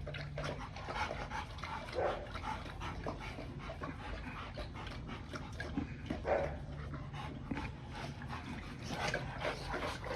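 Young Rottweilers panting with quick, short breaths, with a few brief whimpers.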